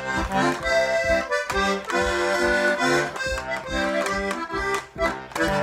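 Accordion playing an instrumental fill between sung lines of a ranchera: a melody of held notes stepping from one to the next over a regular bass beat.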